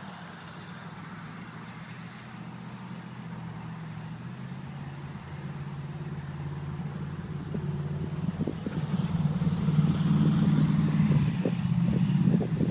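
A motor vehicle's engine running with a steady low hum that grows gradually louder, as if the vehicle is approaching.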